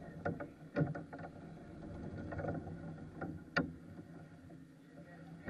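Go-kart engines running in the distance, a steady drone, with a few sharp knocks, the loudest about a second in and again about three and a half seconds in.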